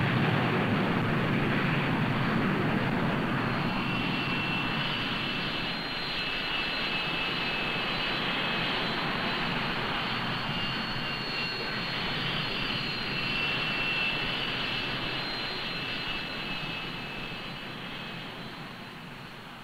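Jet engines of a four-engine jet airliner running on the ground: a steady rush of noise with a high turbine whine on top, gradually fading over the last few seconds.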